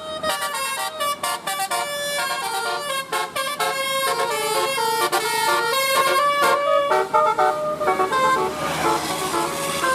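Bus 'telolet' horn, a set of multi-tone air horns, playing a quick tune of short stepped notes. A rushing noise rises beneath it from about eight seconds in.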